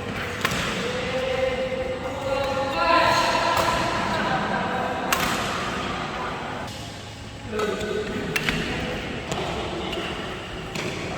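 Badminton racket strikes on a shuttlecock: several sharp hits a second or more apart, with voices chattering in the background.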